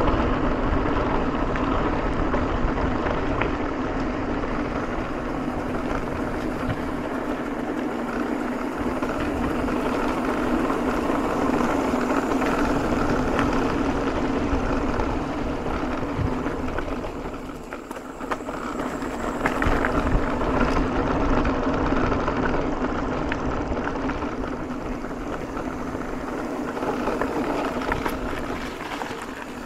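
Mountain bike running fast downhill on a concrete-paved trail: continuous tyre noise and wind buffeting the handlebar-mounted camera's microphone, with the frame and chain rattling over bumps. It eases briefly about two-thirds of the way through, then picks up again.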